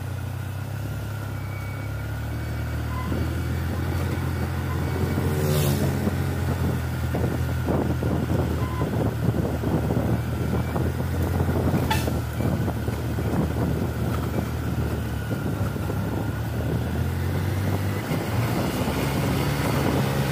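Diesel engine of a loaded Mitsubishi Canter light truck working hard uphill: a steady low drone, with two brief sharp clicks along the way.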